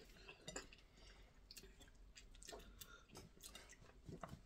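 Faint eating sounds: soft, irregular mouth clicks and smacks of someone chewing fish and soup taken by hand.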